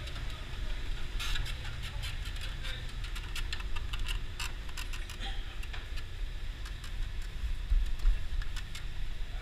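Someone climbing a fiberglass ladder with aluminium rungs: scattered light clicks and knocks of hands and shoes on the rungs over a steady low rumble.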